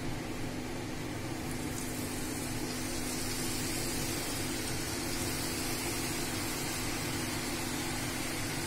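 Deep-frying oil sizzling and bubbling as ribbon pakoda dough is pressed into it, the hiss growing from about two seconds in, over a steady low hum.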